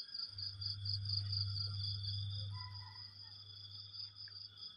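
Crickets and other insects chirping steadily in a fast pulsing trill, with a second unbroken insect drone beneath it. A steady low hum starts just after the beginning and stops near the end.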